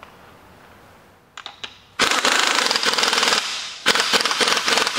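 Impact wrench hammering rapidly as it runs the 24 mm nut down onto the strut shaft, fastening the top mount to the front spring and strut assembly. A few light clicks come first, then about two seconds of hammering, a brief break, and a second run.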